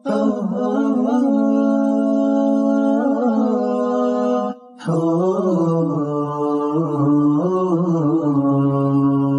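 Background music of long held, slowly wavering notes in two drawn-out phrases, with a brief break about halfway through.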